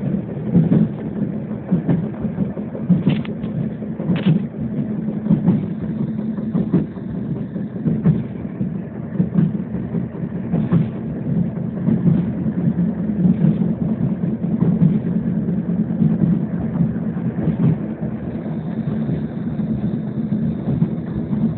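A МиНиН low-floor tram running along the line, heard on board: a steady low rumble of the moving car with continual light rattles and clicks, and two sharper clicks about three and four seconds in.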